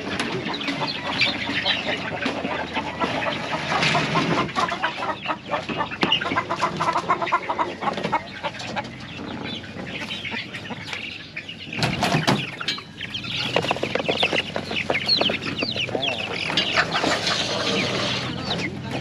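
Many chickens clucking and calling together, dense and overlapping, with a brief louder burst of noise about twelve seconds in.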